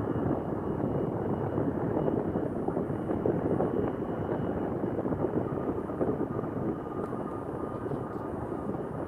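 Boeing 747-400's four Rolls-Royce RB211-524H turbofans at take-off power as the jet climbs away after lift-off: a steady, even jet roar that slowly fades as it gains distance.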